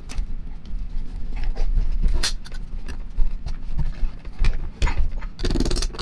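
Handling noise from a heavy Ingersoll-Rand 2850MAX 1-inch air impact wrench as its D-handle is fitted and the tool is turned over on a padded bench: scattered clicks and metal knocks over low thuds, with a half-second rattle near the end.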